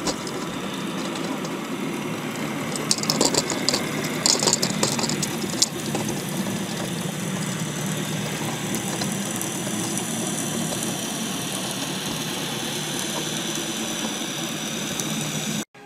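Steady engine drone, with a burst of clattering knocks about three to six seconds in.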